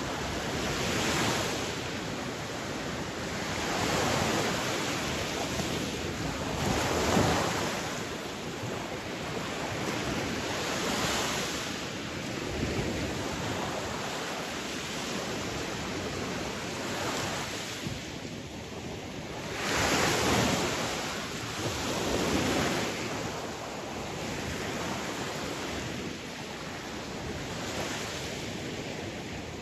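Sea waves washing in, in rising and falling surges every few seconds, the biggest about a quarter and two-thirds of the way through.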